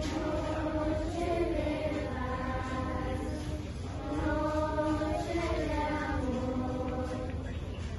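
Children's choir singing a Christmas carol in two long phrases with held notes, over a steady low rumble.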